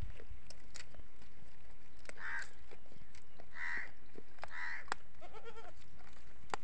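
Goats bleating: three short, high-pitched bleats in quick succession and then a lower one. Dry twigs crackle and snap throughout as the goats browse a pile of cut branches.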